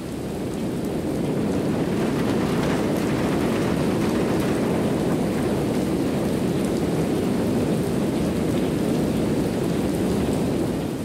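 Heavy rain with a continuous low rumble of thunder, swelling in over the first couple of seconds and fading out at the end.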